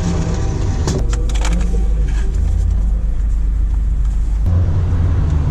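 A car's engine running, a low steady rumble that grows louder in steps as the car moves off from the drive-thru window, with a few clicks and knocks about a second in.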